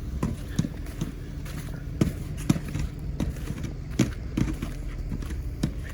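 Footsteps in snow, short thuds about two a second at a walking pace, over a steady low rumble.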